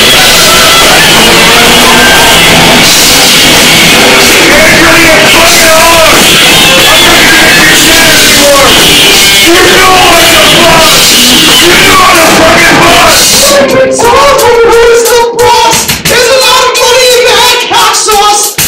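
Live rock band playing loudly: electric guitar with male voices singing. About 14 seconds in, the dense wall of sound drops away and the playing turns sparser and choppier under the singing.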